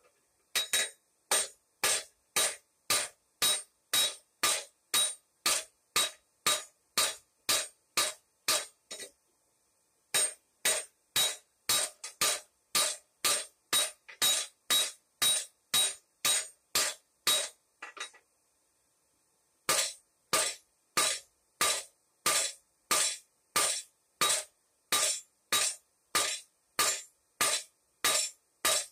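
Hand hammer forging red-hot steel on an anvil: steady blows at about two and a half a second, each with a short metallic ring. The hammering stops briefly about nine seconds in and again about eighteen seconds in, then resumes at the same pace.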